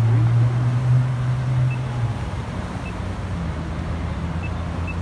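Low, steady rumble of a nearby vehicle engine in street traffic, loud for the first two seconds and then easing off to a softer hum.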